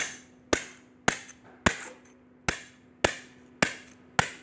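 Hammer blows striking the metal shell of a water heater being cut open for scrap, a steady run of eight sharp strikes about two a second, each with a short ringing tail.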